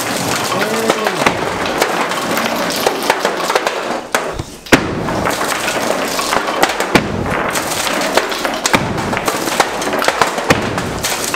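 A hammer knocking apart a wooden shelf: repeated sharp blows and cracks of wood amid continuous clattering, with two louder impacts standing out a little under halfway through and again a few seconds later.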